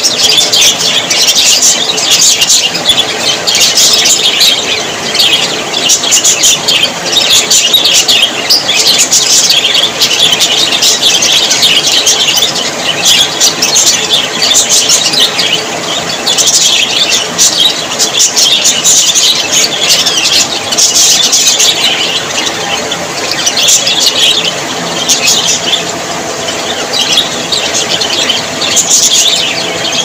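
A flock of budgerigars chattering continuously, a dense overlapping mix of high chirps, warbles and squeaks with no pause.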